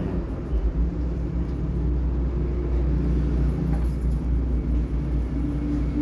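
Steady low background rumble, with a faint hum coming in about five seconds in.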